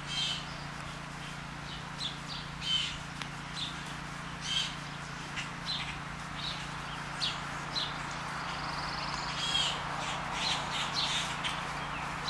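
Blue jays calling, short harsh calls repeated on and off over a steady low hum. A brief high trill comes about eight seconds in.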